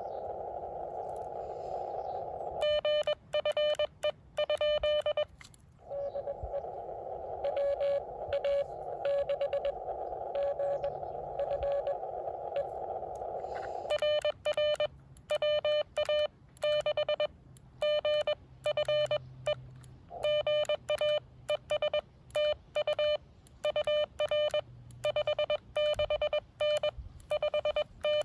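Amateur radio transceiver in CW mode: hiss through a narrow CW filter with a weak station's Morse code beeping faintly in it, alternating with the operator's own loud Morse code sidetone, a steady beep keyed in dots and dashes. The sidetone comes in briefly a few seconds in and again for the whole second half, silencing the receiver hiss between its elements.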